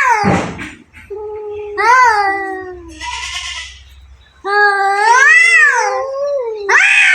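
Two cats yowling at each other in a fight standoff: long, drawn-out wails that rise and fall in pitch, one after another, with a breathy hiss about three seconds in.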